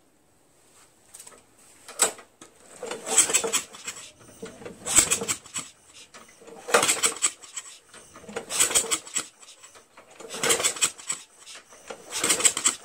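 Push mower's recoil starter pulled six times, about every two seconds, the engine turning over with a whir on each pull but never firing. The cranking sounds really weird, and the mower doesn't start with no gas in it.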